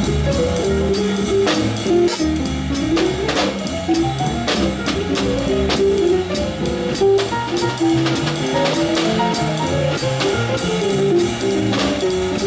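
Live small-group jazz: drum kit with the ride cymbal keeping steady time under sticks, double bass and piano, under a running single-note solo line.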